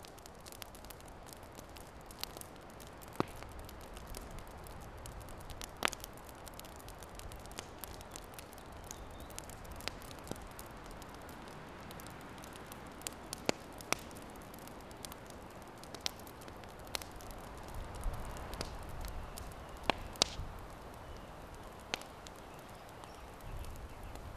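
Campfire embers crackling: a dozen or so sharp, irregular pops and snaps over a steady hiss.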